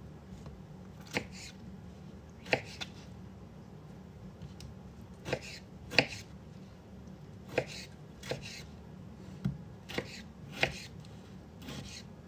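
Kitchen knife cutting tomatoes into cubes on a white plastic cutting board: about ten separate sharp knocks of the blade meeting the board, irregularly spaced roughly a second apart.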